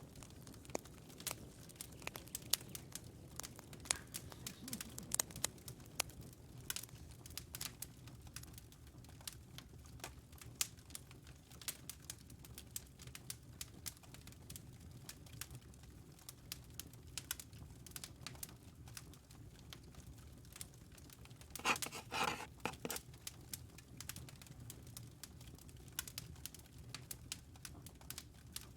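Campfire crackling: irregular sharp pops and snaps over a low steady rumble, with a brief denser flurry of crackles about three-quarters of the way in.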